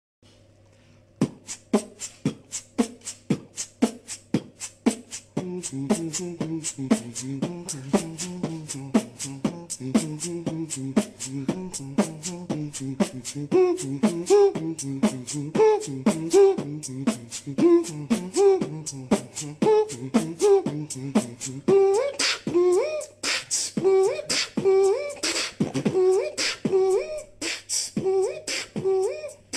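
A man beatboxing: a steady beat of mouth-made kick and snare sounds at about two beats a second, joined after about five seconds by a pitched vocal bass line woven between the beats. Near the end sharp hissing cymbal-like sounds come in over a repeated vocal note.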